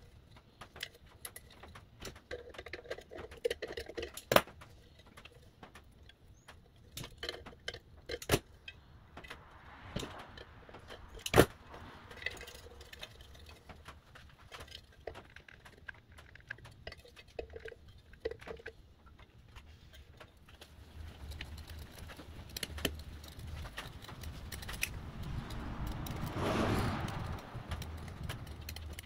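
Scattered clicks, clinks and knocks of hands pushing wires and crimp connectors into a metal lamp housing, sharpest about four and eleven seconds in. Near the end a louder, longer rasping noise swells, as scissors cut through carpet felt.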